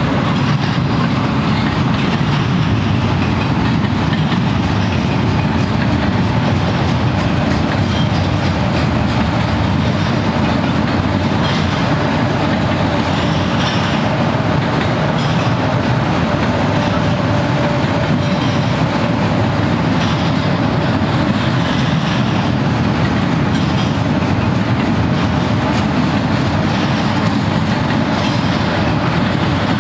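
Double-stack intermodal train's loaded well cars rolling past: a loud, steady rumble of steel wheels on rail.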